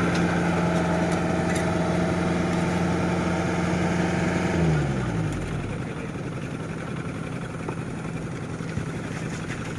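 An engine idles steadily, then winds down and stops about four and a half seconds in, leaving a quieter, even background rumble.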